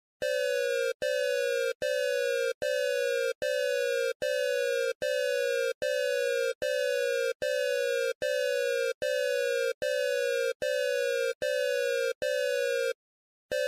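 Colombian emergency alert system alarm: a harsh, buzzy tone repeated in pulses of about 0.7 s, one every 0.8 s, each sliding slightly down in pitch. A half-second break comes near the end before the pulses resume.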